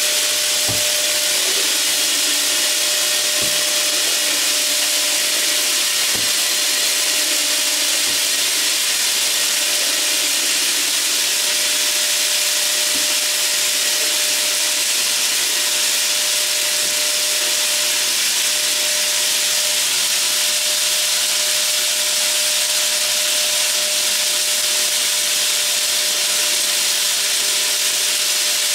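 Vacuum cleaner running steadily: a constant motor whine over a loud rush of air, with a few faint knocks in the first dozen seconds.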